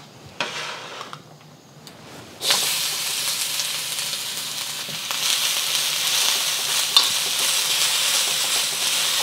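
Chopped onions hitting hot oil in a wok: a loud sizzle starts suddenly about two and a half seconds in and carries on steadily, with a single sharp click a few seconds later.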